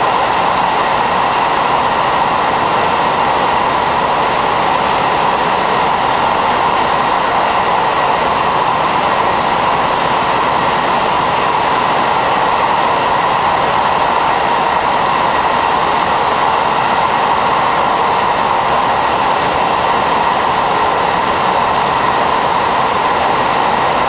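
Running noise inside the cabin of a KiHa 40 diesel railcar at speed. The N-DMF13HZI diesel engine and the wheels on the rails make a steady, loud roar that does not change.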